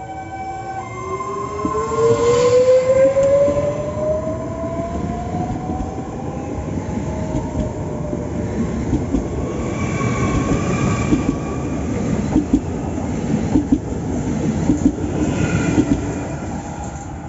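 Electric train passing through a station. Its motors whine with tones that rise in pitch over the first few seconds as it gathers speed, then the wheels rumble and clack over the rail joints.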